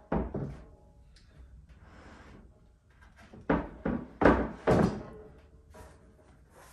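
Thunks of a 3/4-inch melamine panel being set and knocked into place on a wooden workbench frame: one sharp thunk at the start, then four thuds in quick succession around the middle, with quieter sliding and rubbing in between.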